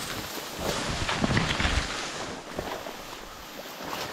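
Someone pushing through dense reeds on foot: irregular rustling of stems and leaves with footsteps, and low wind buffeting on the microphone for a moment about a second in.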